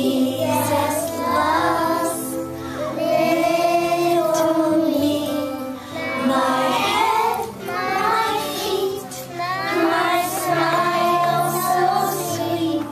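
A group of young children singing a song together in unison over instrumental accompaniment.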